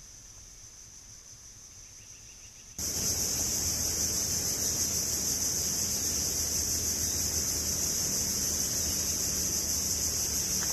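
Steady, high-pitched insect chorus over an even rushing noise. It is faint at first and jumps suddenly much louder about three seconds in, then holds steady.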